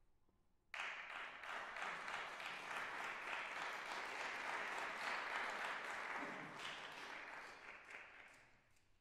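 Audience applauding. It starts suddenly about a second in, holds steady, then dies away near the end.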